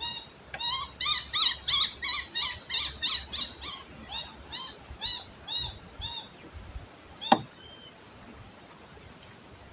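A bird calling: a long series of short, pitched call notes, about three a second at first, then slowing and fading out after about six seconds. One sharp click about seven seconds in.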